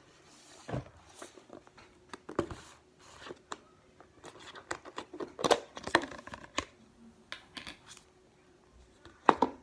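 Irregular handling noises from hands playing with kinetic sand: a string of sharp clicks, taps and scrapes, busiest about five to six seconds in.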